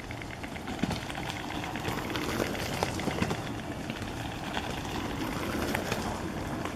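White storks bill-clattering: a rapid run of dry knocks that grows louder about a second in and eases off near the end.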